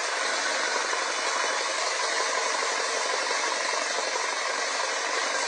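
A power tool running steadily, a dense even noise that holds the same level throughout.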